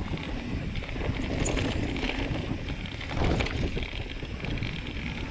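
Wind buffeting the microphone over the tyre roll and rattle of a Rocky Mountain Altitude full-suspension mountain bike riding fast down a dirt singletrack trail, a little louder about three seconds in.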